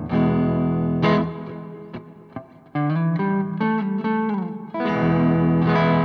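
Electric guitar played through a pedalboard with overdrive engaged: two chords struck about a second apart, a quieter run of single notes sliding down in pitch, and a chord left ringing near the end.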